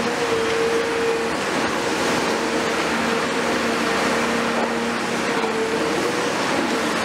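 Cat 336F demolition excavator with a Cat C9.3 diesel running steadily, a drone with a whine from its engine and hydraulics that comes and goes, under a constant hiss.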